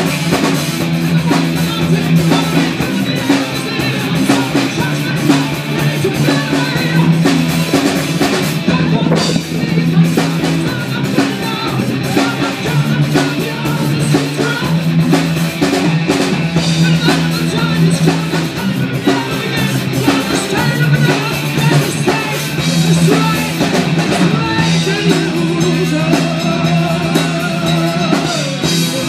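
Live rock band playing through a stage PA: drum kit, electric guitar and a singer.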